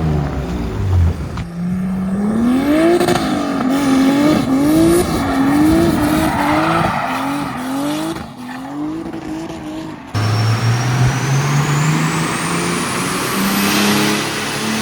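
Turbocharged Mercedes 190E engine being driven hard, its revs swinging up and down again and again. After a cut about ten seconds in, it pulls steadily up through the revs under acceleration, with a high whine rising over it.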